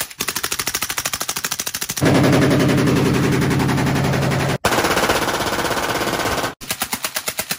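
Full-auto gunfire in stretches. First, a suppressed Arsenal SLR-107 AK-pattern rifle on subsonic ammunition fires about ten rounds a second. About two seconds in, a louder, unbroken burst comes from an unsuppressed short Arsenal SLR-104UR AK. About four and a half seconds in, a Glock 18 machine pistol fires on full auto, and the suppressed AK's separate shots return near the end.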